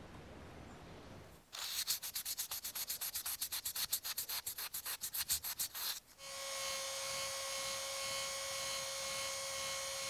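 A small abrasive pad scrubs quickly back and forth over a textured, blackened brass spoon lure, rubbing the dark finish off its high spots in rapid rhythmic strokes. About six seconds in this stops, and a small handheld rotary tool with a felt polishing wheel starts running with a steady whine as it polishes the brass.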